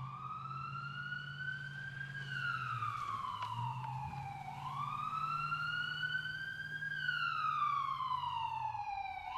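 A wailing siren, its pitch rising for about two seconds and falling for about two, going through the cycle twice, over a steady low hum.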